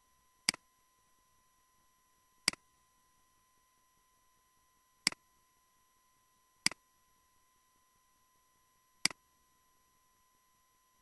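Computer mouse clicked five times at uneven intervals, each a quick press-and-release double click.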